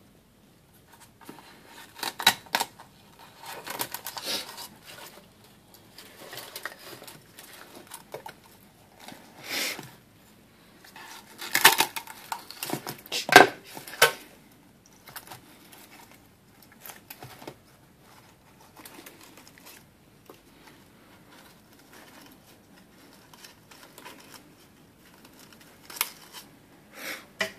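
Kitchen scissors snipping around the shell of a live sea urchin, with the brittle spines and shell clicking and scraping as it is handled on a wooden cutting board. Irregular snips and clicks with pauses between, a cluster of louder ones about halfway through and again near the end.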